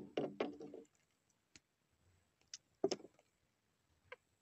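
Sparse clicks and soft taps from hands unhooking a small fish and handling the hook and fishing line, with quiet gaps between them; the sharpest click comes about three seconds in.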